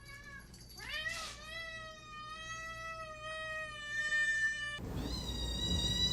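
Domestic cat meowing: a short meow, then one long drawn-out meow that rises and holds a steady pitch for about four seconds. Near the end, against a noisier background, another long, higher-pitched cry starts.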